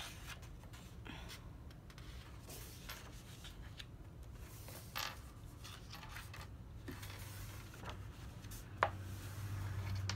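Pages of a large coloring book being turned by hand: soft paper rustles and scrapes as the sheets slide over each other, with a sharp tap about nine seconds in.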